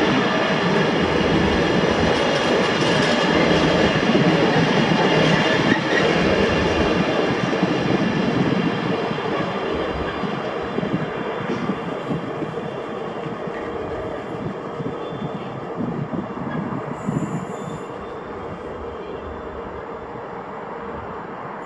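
Container freight train's wagons rolling past on the rails, with a dense rumble of wheels and thin high squealing from the wheels. The noise is strongest for the first several seconds, then fades away steadily as the train draws off.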